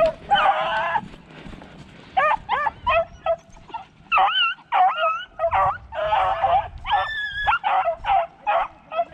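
A pack of beagles baying as they run a rabbit's scent trail: a long howl near the start, then after a short pause a fast run of overlapping yelps and bays from several dogs.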